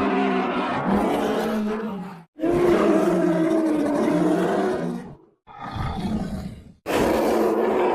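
Bear roars used as a monster sound effect. Two long, drawn-out pitched roars come first, then two shorter, rougher roars near the end.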